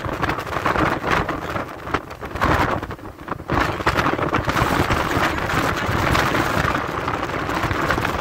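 Wind buffeting the microphone over the rumble of a moving vehicle, heard from its open back. The gusts come in uneven surges at first and settle into a steadier rush about halfway through.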